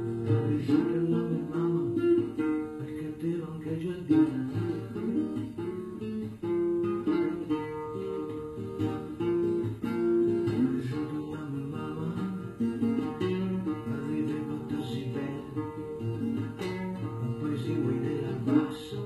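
Nylon-string classical guitar tuned to open D, played throughout as song accompaniment.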